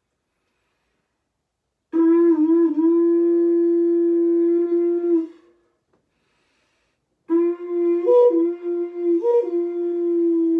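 Wooden end-blown flute playing two long held low notes with a short silence between them. The first note wavers briefly at its start; the second is broken twice by a quick flick up to a higher note.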